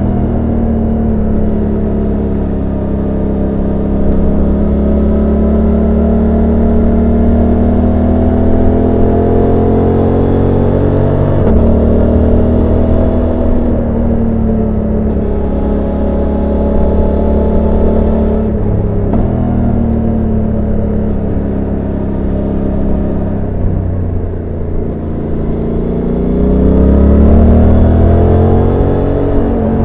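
Suzuki GSX-8S parallel-twin engine heard onboard while riding, its note sinking and rising with throttle, with sudden pitch changes at gear shifts about 11 and 18 seconds in. Near the end it revs up louder and then falls away.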